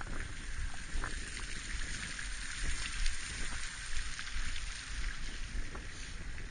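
Recumbent trike rolling along a concrete path, heard from a helmet-mounted camera: a steady hiss, wind buffeting on the microphone as a gusty low rumble, and a few light knocks as the wheels ride over the path's joints.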